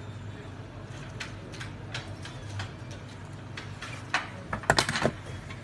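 Scattered light clicks and taps, then a quick run of sharper, louder clicks near the end, over a steady low hum.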